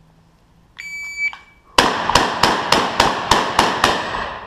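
A shot timer's electronic start beep, then a shotgun fired in rapid succession, about eight shots in roughly two seconds, ringing in an indoor range.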